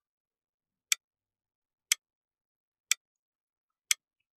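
Clock-tick sound effect, one sharp tick a second with silence between, four ticks in all: a countdown timer for answering a quiz question.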